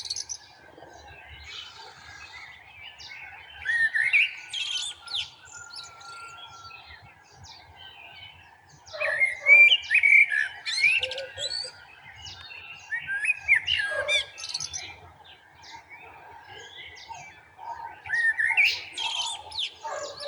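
Garden songbirds singing: short bursts of quick, high chirping and warbling notes come about every four to five seconds, over a faint steady background of more distant bird calls.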